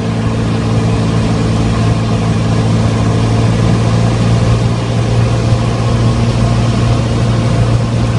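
Cessna 172's piston engine and propeller droning steadily in the cockpit during a landing approach, a constant low hum with hiss over it.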